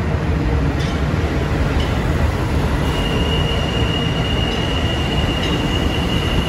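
R160 subway train running past the platform on the express track, its wheels making a steady low rumble on the rails. About three seconds in a steady high squeal sets in and holds.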